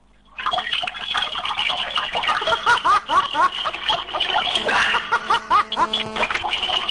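A stream of urine splashing into toilet water, starting about half a second in, with many quick rising gurgling tones, heard through a webcam chat microphone.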